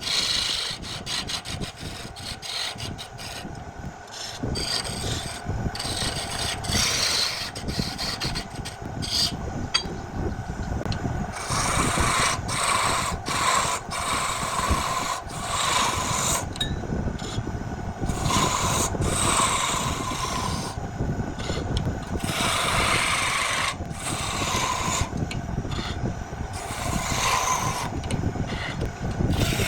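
Woodturning lathe running while a tool is held against the spinning wood, a rasping, scraping sound that comes in repeated passes, about one every second or two in the second half.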